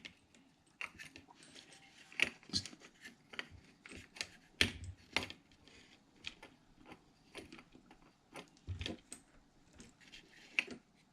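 Scattered light clicks and taps of small metal parts and tools being handled while the cable and connector are set up and clamped for soldering.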